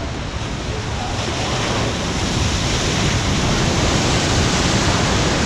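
Machine-generated surf-pool wave breaking, its whitewater rushing along the pool wall. The rush grows louder from about a second in as the breaking wave reaches and passes by.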